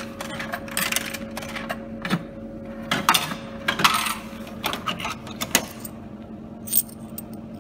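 50p coins being pushed one after another into a vending machine's coin slot and clattering through the mechanism into the change tray, a run of irregular clicks and metallic rattles. A steady hum runs underneath.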